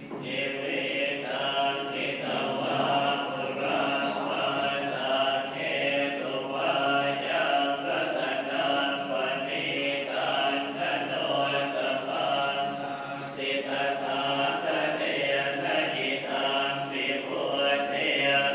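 Several voices chanting together in unison, a Buddhist chant sung in long sustained phrases with short breaks between them.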